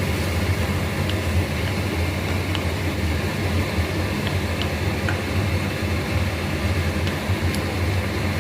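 A steady low mechanical hum, like a fan or motor running, with a few faint light ticks over it.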